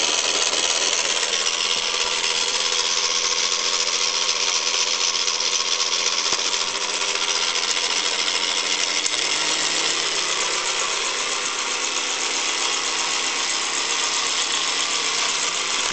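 Electric hand mixer's motor running continuously at one speed, driving a homemade gear train and shafts. The result is a steady high-pitched mechanical whir with gear whine.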